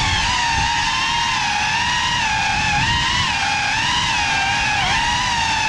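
Cinewhoop FPV quadcopter's brushless motors whining steadily, the pitch wavering up and down with the throttle and dipping, then rising again, about five seconds in.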